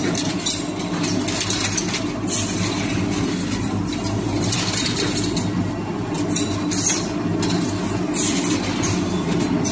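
Automatic mushroom substrate machine running: a steady motor hum with irregular short bursts of hiss.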